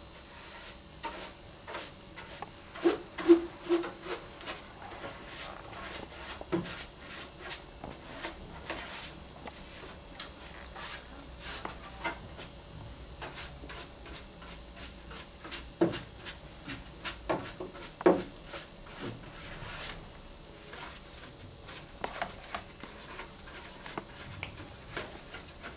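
Dusting brush swept over a desktop PC, its monitor and keyboard: light rubbing with scattered small clicks and knocks as the plastic equipment is handled, a few sharper knocks about 3, 16 and 18 seconds in.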